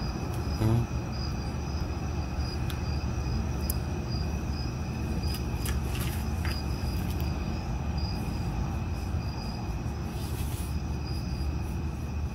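Crickets chirping, a steady high trill with a faster pulsing chirp above it, over a steady low rumble. A few faint clicks break in.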